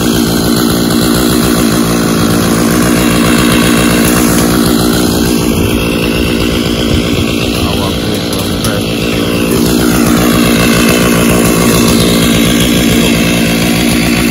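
Petrol two-stroke cutting tools running steadily at high revs while clearing roadside bush and grass.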